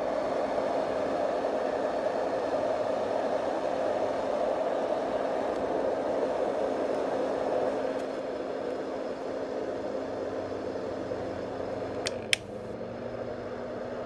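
Dohm white noise machine running: its built-in fan gives a steady rushing noise with a faint hum under it. About twelve seconds in, its switch clicks twice, the hum dips briefly, and the noise settles a little quieter as the speed setting is changed.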